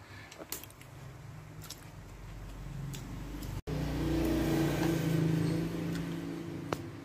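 A motor vehicle's engine builds up, is loudest a little past the middle, then fades away. A few light clicks sound near the start and near the end.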